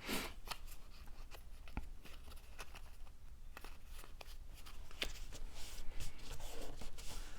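Cardstock pieces being handled and fitted together: soft paper rustling with scattered light taps and clicks.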